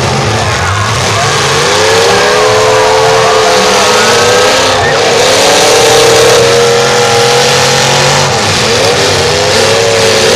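Demolition derby cars' engines revving hard, rising and falling in pitch as the cars push against each other.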